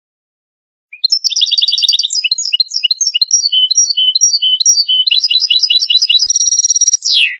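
European goldfinch song: a fast, continuous run of twittering trills and chattering notes starting about a second in. It ends in a falling note and stops abruptly.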